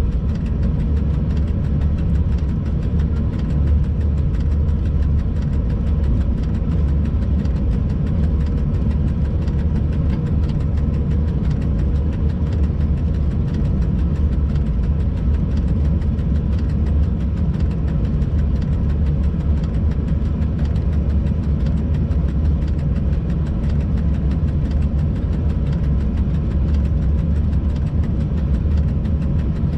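Steady low rumble of a freight locomotive's cab, with a faint steady tone above it.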